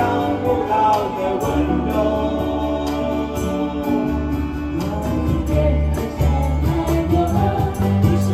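Background music: a song with singing over a steady beat.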